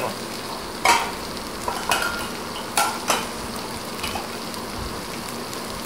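Pointed gourd (potol) pieces sizzling with spices in a kadai, a steady hiss, while a ladle stirs them and knocks and scrapes against the pan several times.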